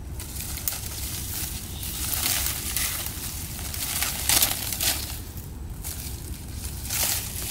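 Leafy bush branches rustling and crackling as they are pulled and leaves are picked off, in a series of irregular crackly bursts, the loudest about four seconds in.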